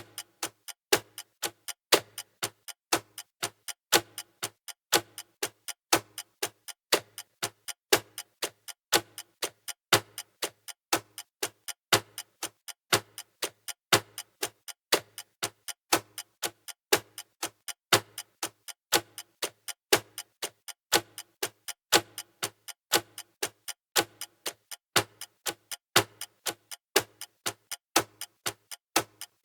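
Clock ticking steadily, an even, regular tick-tock.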